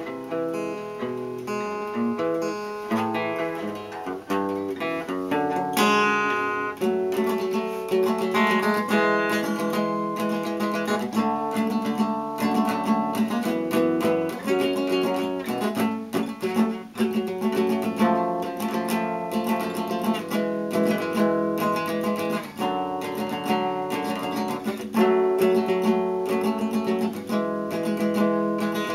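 Acoustic guitar played solo, a continuous run of picked and strummed chords over a steady low bass note.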